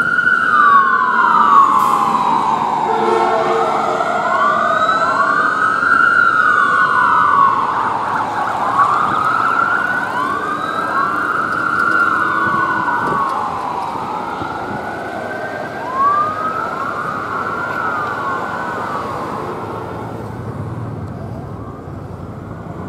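Wailing sirens of a fire engine and a rescue unit responding, two slow rising-and-falling sweeps overlapping out of step. They fade gradually as the vehicles pull away.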